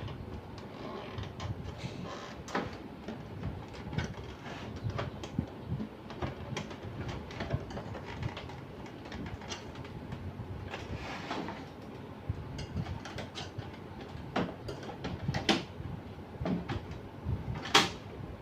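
Irregular plastic clicks, knocks and a short scraping rustle from hands handling and taking apart a laser printer's casing and parts, with a sharp click near the end.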